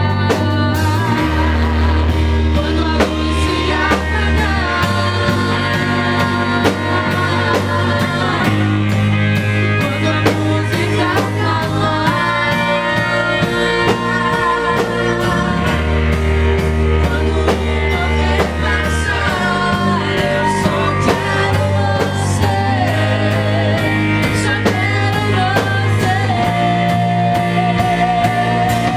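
A live worship band plays a song, with singing over the instruments.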